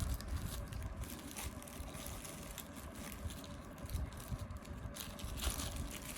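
Steady low rumble with a few faint clicks and rustles as plastic action-camera mount accessories are handled.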